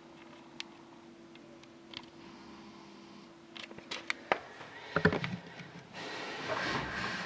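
Handling of a trading-card box and its packaging: a few scattered taps and clicks from about three and a half seconds in, then a stretch of rustling near the end. Before that, only a faint steady hum.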